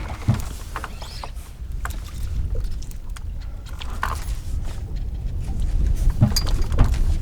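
Low steady rumble with scattered light knocks and clicks from a small boat on the water.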